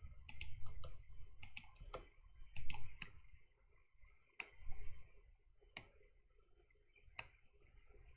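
Irregular computer mouse and keyboard clicks, about nine in all, coming closer together in the first three seconds and more sparsely after.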